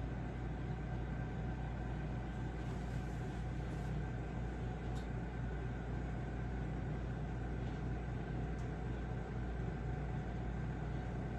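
Microwave oven running with a steady hum while heating a cup of milk-soaked Oreo cookies into a mug cake.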